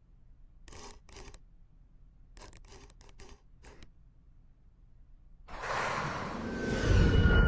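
Soundtrack sound effects: a handful of sharp clicks, two about a second in and a quick run of about six a little later, then a loud rush of noise with a deep rumble that swells up near the end.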